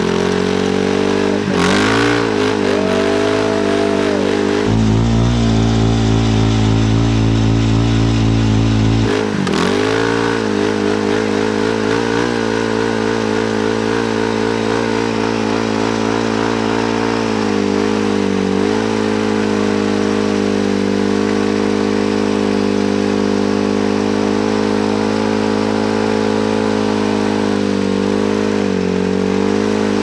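Honda 400EX ATV's single-cylinder four-stroke engine held at high revs, with its masonry-cutting-disc rear wheels spinning on gravel. The pitch dips briefly and recovers about four times as the engine is shifted up through the gears.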